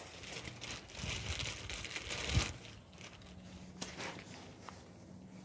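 Crinkling and rustling as small brake parts are handled, with a dull knock about two and a half seconds in and two light clicks around four seconds in.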